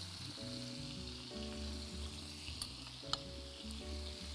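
Slices of meat with garlic sizzling steadily in a frying pan, under soft background music with held notes. There are a couple of light clicks in the middle.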